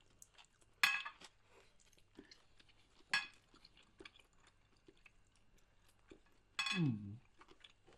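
Close-up eating sounds: soft chewing with cutlery clinking on plates, two sharp ringing clinks about a second and three seconds in. Near the end, another clink and a short falling 'mm' from one of the eaters.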